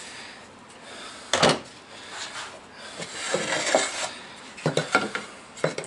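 Wooden pieces and tools handled on a workbench: a sharp knock about a second and a half in, scraping and rubbing in the middle, then several quick clicks and taps near the end.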